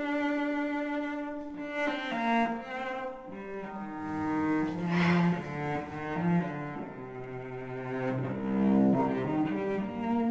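Slow background music on bowed string instruments, with long held notes sounding together in chords that shift from one to the next.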